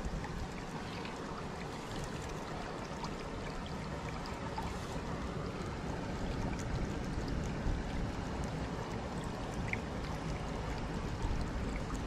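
Shallow mountain stream water flowing and trickling steadily, with a few faint ticks.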